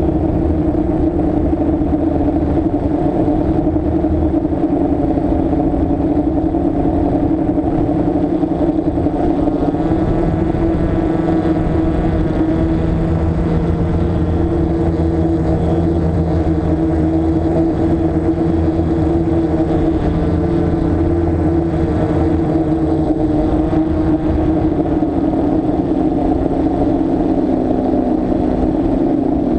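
Six brushless motors and propellers of a DJI Flame Wheel F550 hexacopter, heard from the camera on the craft, humming steadily as it holds nearly still in the air. The pitch shifts a little about ten seconds in and again near the end.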